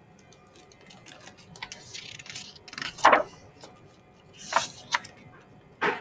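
A hardcover picture book being handled and opened, its pages turned: paper rustling with a few sharp knocks and clicks, the loudest about halfway through.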